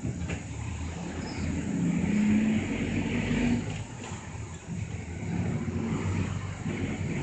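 A city route bus's engine running under way, heard inside the passenger cabin together with tyre and road noise. The engine hum is strongest a couple of seconds in and eases off about four seconds in.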